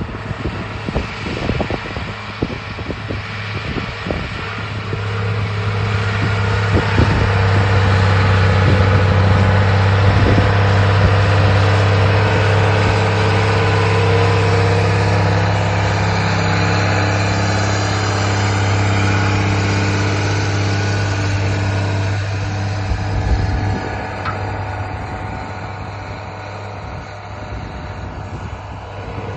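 Versatile 750 four-wheel-drive tractor's diesel engine running steadily under load while pulling a speed disc. It grows louder as the tractor passes close, about a third of the way in, then fades as it moves away.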